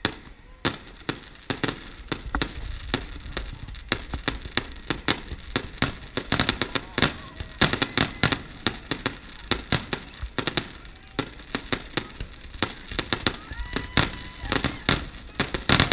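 Aerial fireworks display: shells bursting in a rapid, irregular string of sharp bangs and crackles, several a second, starting abruptly at the beginning and growing denser toward the end.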